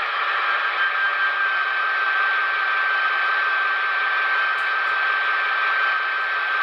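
Paragon 4 sound decoder of an HO-scale Broadway Limited EMD GP35 model playing the diesel engine running after its extended startup. Steady sound with a constant high whine, thin and without deep bass, as from the model's small onboard speaker.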